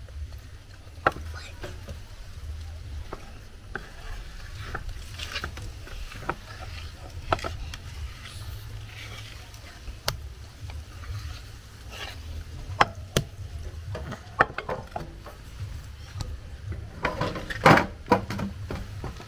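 Knocks and clinks of a glass mixing bowl and kitchen utensils being handled on a table as dough is scraped out by hand, with a louder cluster of knocks near the end.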